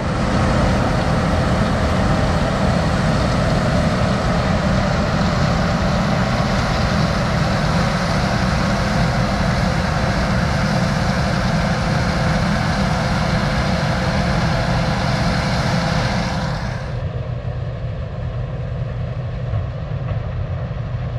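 Harvest machinery's diesel engine running steadily, with a loud hiss over it that drops away sharply about four seconds before the end.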